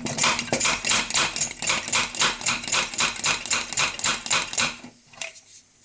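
Hand air pump of an antique paraffin blowlamp being worked rapidly to pressurise the fuel tank, a fast even train of short puffing strokes, several a second, that stops near the end.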